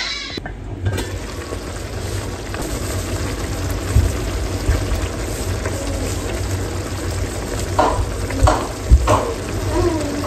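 Ground-beef and tomato sauce sizzling steadily in a stainless steel electric skillet while being stirred with a spatula, with a few sharp knocks about four seconds in and again near the end.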